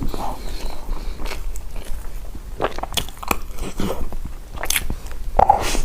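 Close-up eating sounds: biting into and chewing crunchy food, with many irregular sharp crunches and crackles.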